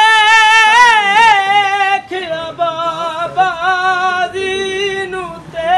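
A man's high voice sings an unaccompanied Punjabi mourning kalam in a long, wavering melismatic line without clear words. After about two seconds it breaks into shorter phrases, with a brief pause near the end before the voice comes in again.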